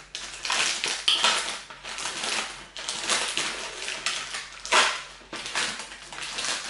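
Crunchy food being chewed, a run of irregular crunches.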